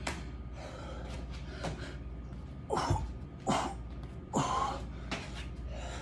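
A man breathing hard from exertion during burpee-style exercise reps, with three loud, forceful exhales in quick succession about halfway through.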